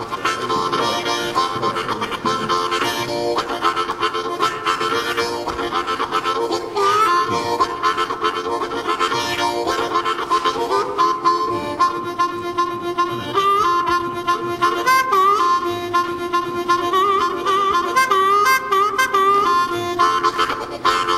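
Harmonica music: held chords at first, then from about halfway a melody of quick, wavering, bending notes.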